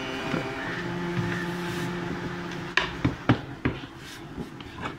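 Faint steady background music, then about six sharp knocks in the second half as a wooden cutting board is tapped and scraped against a plastic container to slide chopped onion and potato in.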